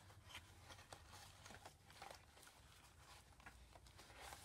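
Faint, scattered light clicks and rustling of oil pastel sticks being packed back into their cardboard box.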